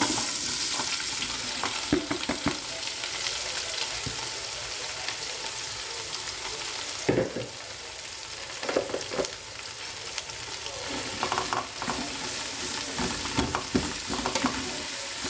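Sliced onion, bell pepper, spring onion and carrot sizzling in hot oil in a steel pot, just tipped in. A utensil knocks and scrapes against the pot as they are stirred, mostly in the second half.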